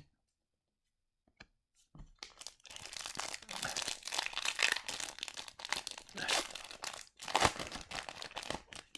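Crinkling and tearing of a foil trading-card pack wrapper being handled and opened, a dense crackle that starts about two seconds in and goes on almost to the end, with a few loud peaks.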